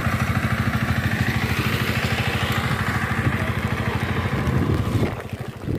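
Single-cylinder diesel engine of a power tiller (Dolphin 20) running under load in a wet paddy field, with a steady, rapid beat. The engine sound drops away about five seconds in.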